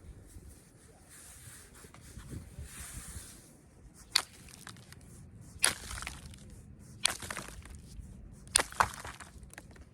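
Flint being knapped: a stretch of soft scraping, then five sharp clicks as flakes come off the stone, the last two in quick succession.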